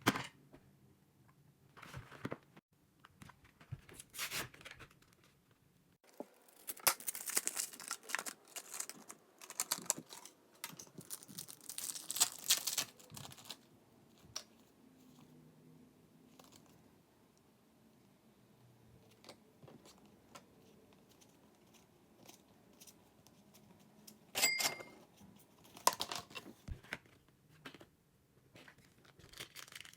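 Pokémon card packaging being torn open and crinkled by hand in short, irregular bursts, busiest in the first half, with quiet gaps between. About three quarters of the way through comes a sharp click with a brief ringing tone.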